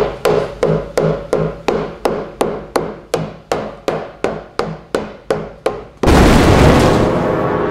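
Rubber mallet tapping a plastic port tube into a subwoofer enclosure: a quick, even run of about twenty sharp knocks, three or four a second. About six seconds in the knocking gives way to a loud rushing whoosh.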